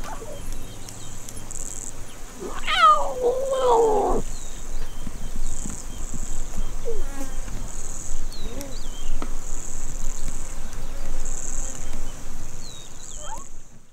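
Lion cubs calling: one loud, wavering call falling in pitch about three seconds in, then a few shorter, fainter calls. A steady, pulsing high insect buzz runs behind them.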